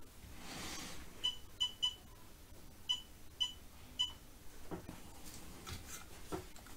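Six short, high electronic beeps in two groups of three from a soldering or hot-air rework station, the kind its control buttons give while settings are being changed.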